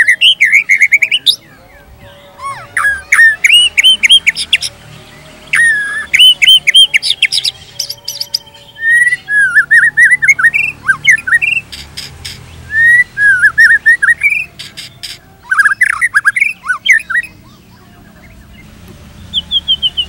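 White-rumped shama singing: phrase after phrase of quick rising and falling whistled notes, broken by fast runs of dry clicks. There is a pause of about two seconds near the end.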